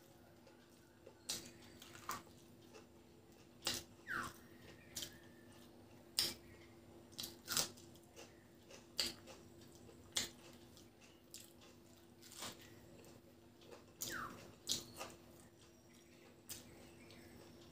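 Close-miked eating with the hand: irregular wet mouth clicks and smacks while chewing rice and fried fish, with a few short falling squeaks among them. A steady low hum runs underneath.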